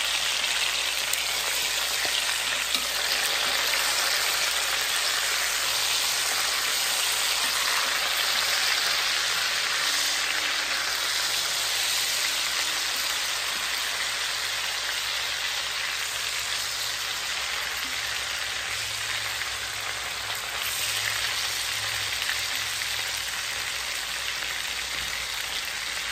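Cornish hens frying in butter in an enameled cast-iron Dutch oven, a steady sizzle as the skin browns.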